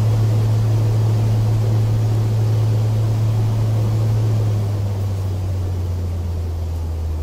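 Metal lathe running a finishing cut on mild steel: a steady low hum over a noisy haze, dropping lower in pitch about five seconds in.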